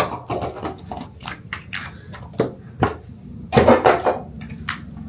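Small hard objects being handled and set down, a string of short clicks and knocks with a louder clatter about three and a half seconds in.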